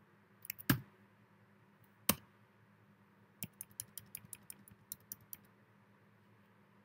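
Typing on a computer keyboard: two single, sharper key presses in the first two seconds, then a quick run of about ten lighter key taps that stops well before the end.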